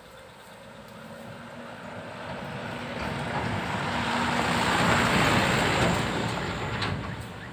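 A road vehicle passing by: a rush of engine and tyre noise that builds up, peaks about five seconds in and fades away.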